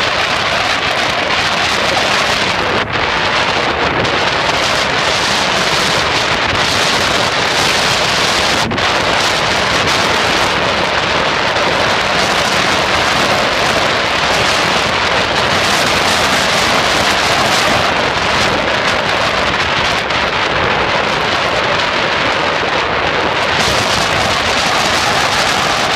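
Strong wind blowing across the microphone in a loud, steady rush, with small lake waves breaking along the shore.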